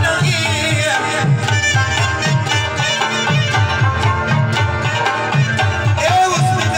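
Live South Asian folk music: harmonium playing held tones over a steady tabla rhythm, about two drum strokes a second.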